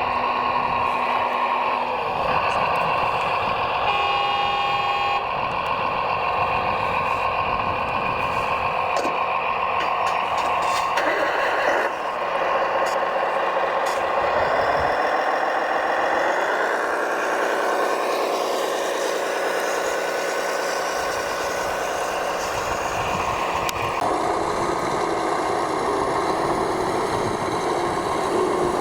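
Radio-controlled scale-model construction machines running, giving a steady mechanical hum of motors and engine sound, with a whine that rises in pitch about halfway through.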